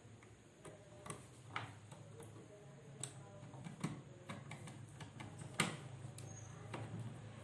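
Scattered small clicks and ticks of a screwdriver working the terminal screw of an earth bar, fastening the earth wire. The clicks are irregular, with the sharpest about two-thirds of the way through.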